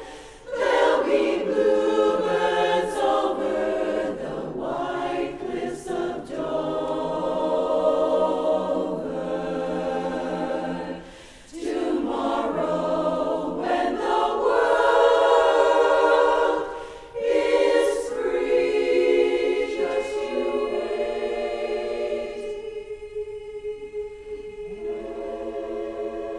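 A barbershop chorus singing a cappella in close harmony, sustained chords broken by short breaths between phrases, easing to a softer passage near the end.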